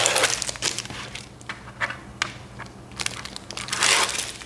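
Adhesive shipping tape being peeled off the plastic housing of a breast pump, scratchy ripping at the start and again about three seconds in, with small crackles in between.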